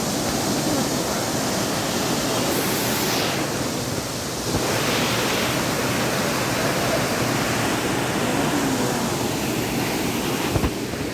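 Kanchenjunga Falls, a large waterfall, giving a loud, steady rush of falling water, with a brief knock near the end.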